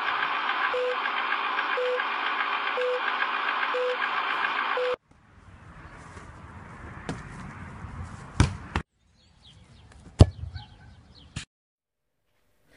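Film countdown leader sound effect: a steady hiss with a short beep once a second, five beeps, cutting off suddenly about five seconds in. Then a volleyball being hit back and forth by hand, with sharp smacks of the ball, and a couple of louder smacks near the end.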